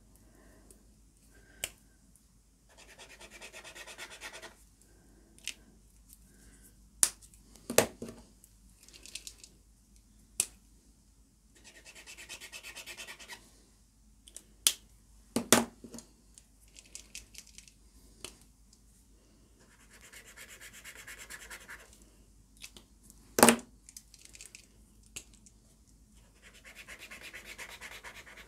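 Paint-marker nibs scrubbing back and forth on smooth cartridge paper, four short spells of scribbling about two seconds each. Between them come sharp clicks and taps of pen caps being pulled off and snapped back on and pens being put down, the loudest of these being the click-and-knock sounds.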